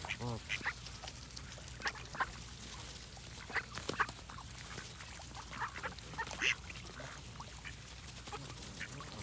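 Ducks quacking in short, scattered calls, several birds calling on and off, over a low steady hum.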